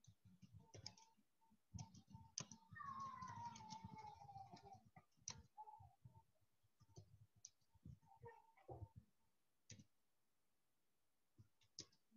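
Computer keyboard typing: faint, irregular key clicks. About three seconds in, a faint tone glides downward for about two seconds.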